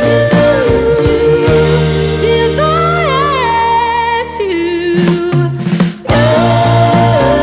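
Background music with a sung melody over a steady bass line, briefly dropping out about six seconds in before picking up again.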